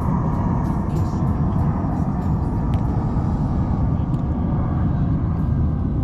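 Steady low rumbling noise of wind blowing across the microphone, with a few faint ticks.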